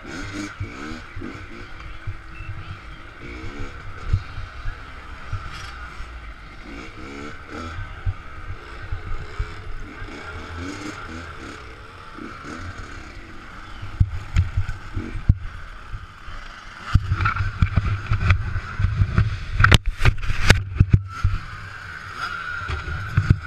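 Minibike engine running at low speed, with wind rumble on the microphone. Near the end comes a run of loud knocks and rumble.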